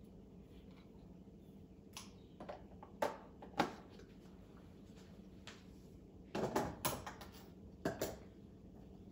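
Scattered light knocks and clatters of things being handled at a kitchen bench around an espresso machine, with a quick cluster of them about six to seven seconds in, over a faint steady hum.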